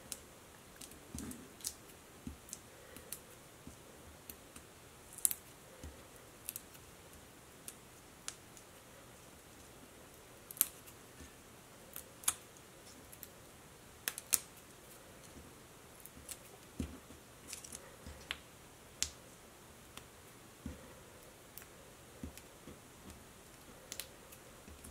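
Scattered light clicks and taps of cut cardstock pieces being handled and adhesive dots being peeled off and pressed down onto a cutting mat, irregular and a second or so apart.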